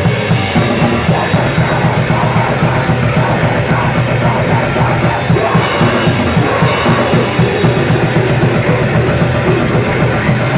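Loud rock or heavy-metal music with a fast, driving drum-kit beat.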